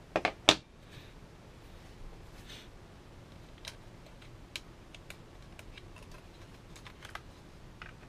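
A 2.5-inch SSD being handled and fitted into a laptop's drive bay: two sharp knocks just after the start, then scattered light clicks and taps of the drive and its mounting screws against the casing.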